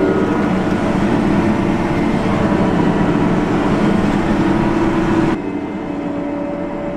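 Tractor engine running steadily under load, heard from inside the cab while pulling a seed drill through wet, muddy ground. About five seconds in the sound abruptly becomes quieter and duller.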